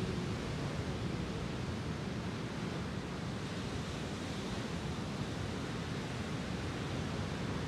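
Lake Superior surf: waves breaking and washing up on a sandy beach, a steady rush.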